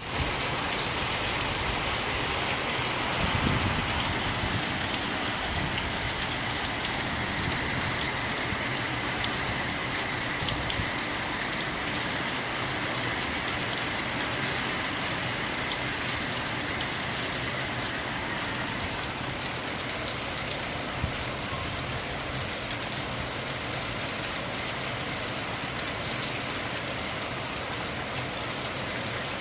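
Steady rain falling, a dense even hiss with scattered drop ticks, and a brief low rumble a few seconds in.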